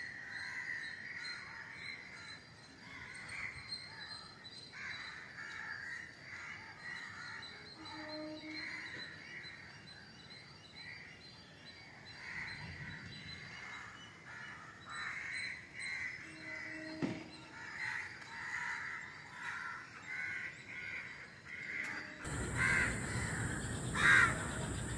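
Crows cawing repeatedly in the background, in short, irregular calls. Near the end the sound switches to a louder, hissy background with a couple of sharp knocks.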